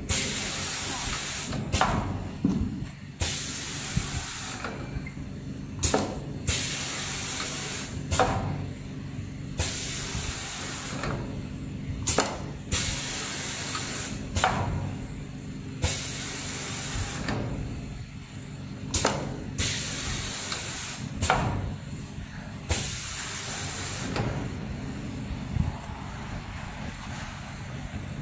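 Pneumatic cardboard slot-cutting machine running through cutting cycles: sharp clicks, each followed by a burst of hiss about a second long, repeated about nine times over a steady low machine hum.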